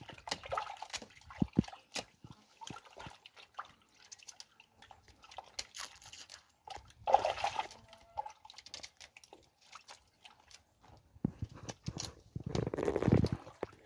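Water sloshing and dripping in a plastic bucket as peeled cassava roots are rubbed and rinsed by hand, with louder sloshing about seven seconds in and again near the end.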